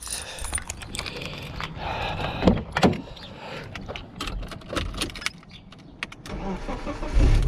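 Clicks and knocks from a car door and keys jangling, then about 7 seconds in the BMW's engine cranking over on a weak battery, which the tester reads as cranking low.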